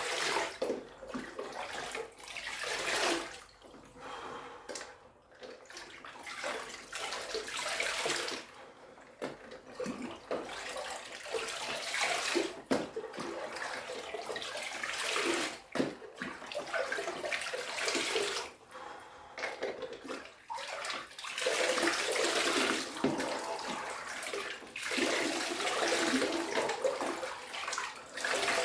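Ice water sloshing and splashing in a chest-freezer cold plunge, in irregular swells that rise and fall every second or so.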